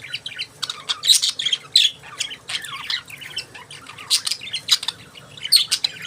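Budgerigars chirping and chattering: a continuous stream of short, sharp squawks and warbled calls, with louder bursts every second or so.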